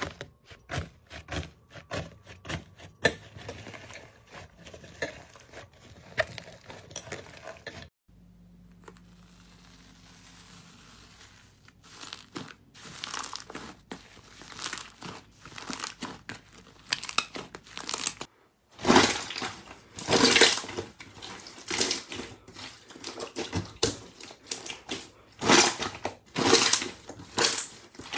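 Hands squeezing and pressing slime: runs of short sticky crackles and pops. The sound breaks off at about eight seconds and again near eighteen seconds, with a quieter stretch after the first break. The loudest squishes come in the second half, from the green slime being squeezed.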